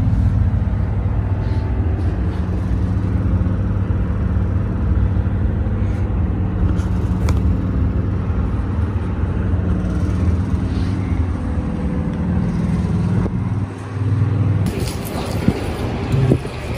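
Steady low-pitched hum. About three-quarters of the way through it gives way to brighter street noise with a few sharp knocks.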